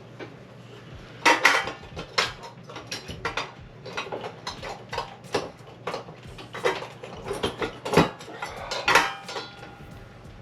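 Irregular clinks, clicks and rattles of hard ceiling-fan parts being handled, as the fan's canopy is fitted onto the downrod before the wires are reconnected.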